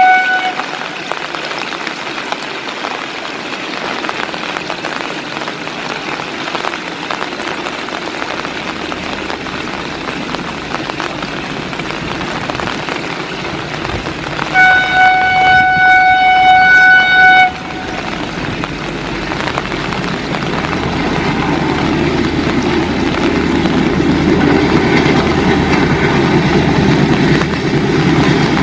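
Heavy rain hissing, with a train horn sounding one steady note for about three seconds midway, after the tail of an earlier blast right at the start. In the last third a diesel locomotive engine grows steadily louder as the train approaches.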